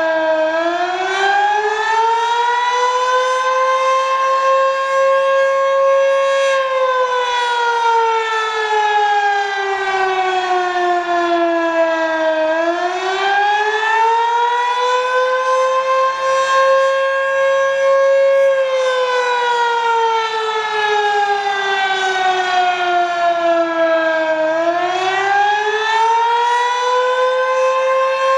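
Model 20 outdoor warning siren sounding a test wail. Its pitch climbs for a few seconds, holds high, then slides back down. The cycle repeats about every twelve seconds, with two tones moving together.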